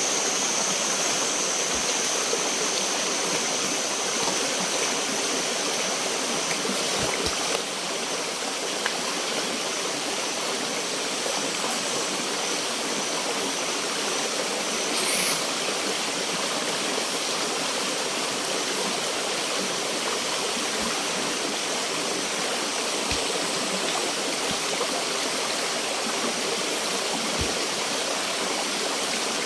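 Stream water flowing steadily. A high-pitched steady whine sits over it for roughly the first eight seconds.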